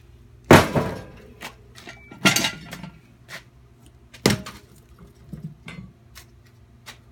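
Metal clanks and knocks from a manual tire-changing machine and its steel tire bar being handled: three loud clanks about two seconds apart, with lighter taps between.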